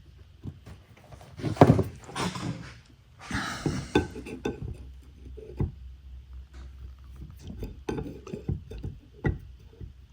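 Handling noises of a precision measuring tool being locked and read against a camshaft: scattered small clicks and knocks, with two brief scraping, rustling sounds in the first four seconds.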